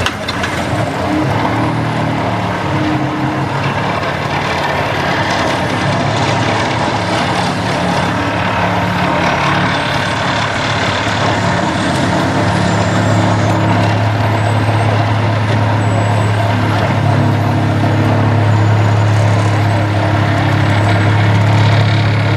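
Excavator-mounted Daedong DTVH700T telescopic vibratory hammer driving a steel sheet pile, a steady low mechanical hum over the Volvo 360 excavator's diesel engine and hydraulics, growing somewhat louder about halfway through.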